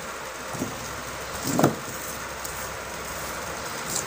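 Steady low background noise with one short dull knock about one and a half seconds in.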